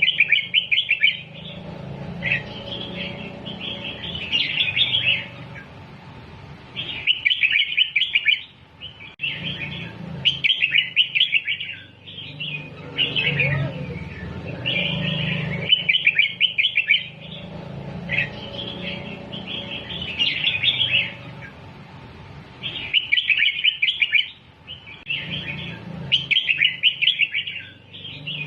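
Red-whiskered bulbul singing: bursts of quick, chirpy warbled phrases, one group after another with short pauses between. A steady low hum runs underneath.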